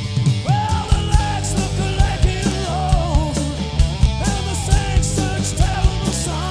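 Live rock-and-roll band playing at full volume: drum kit keeping a steady beat, electric bass, hollow-body electric guitar and strummed acoustic guitar. A wavering melody line comes in over the top about half a second in.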